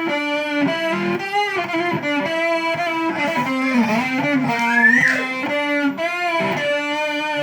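Electric guitar played through an effects unit: a sustained lead melody of held notes with vibrato and string bends, including a rising bend about five seconds in.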